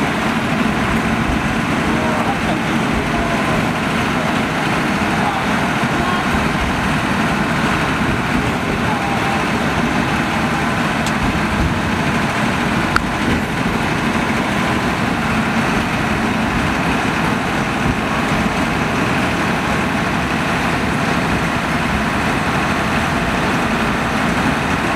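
Akasawa forest railway's small narrow-gauge train running steadily along the track, the diesel locomotive and the wheels on the rails making a continuous rumble, with a single click about thirteen seconds in.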